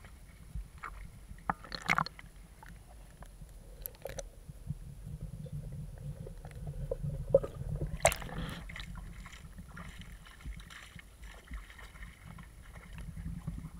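Water sloshing and gurgling, heard muffled through an action camera's waterproof case as it is dipped underwater, with a few sharp knocks on the case, the loudest about eight seconds in.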